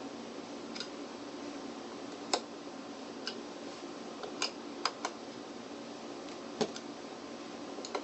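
Scattered light clicks of a tool working the screws on the electric unicycle's pedal hangers as they are tightened, the loudest about two and a half seconds in and again near the end, over a steady faint hum.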